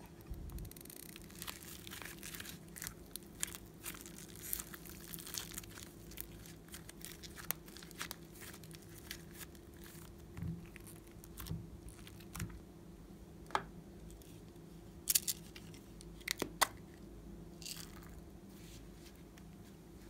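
Soft clay being squeezed, torn apart and pressed onto slime topped with foam beads and glitter: a steady run of small crackling and tearing sounds, with a few sharper clicks in the second half.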